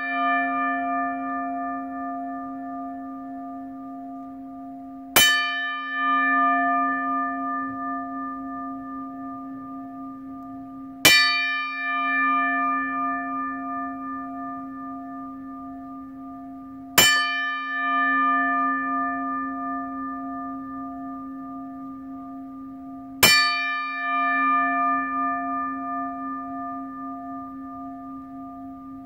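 A large bell tolling slowly, one stroke about every six seconds, four strokes in all. Each stroke rings out long and fades before the next, with a low hum that wavers as it dies away.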